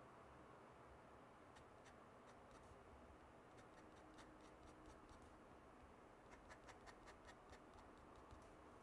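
Faint scratching of a Nikko 537 dip-pen nib on sketchbook paper, drawing short ink strokes. A quick run of flicks comes about two-thirds of the way through.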